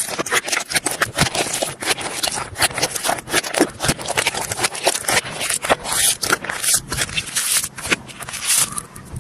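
Slime being squished and worked, giving a dense, irregular run of sticky crackling and popping clicks, several to the second.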